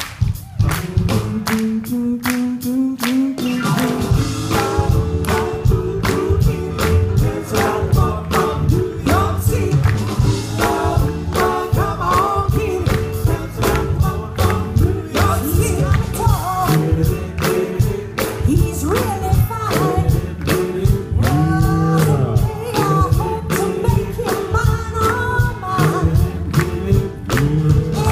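A vocal harmony group singing live with a band of electric bass guitar and drum kit, over a steady beat; the full band and voices come in about four seconds in.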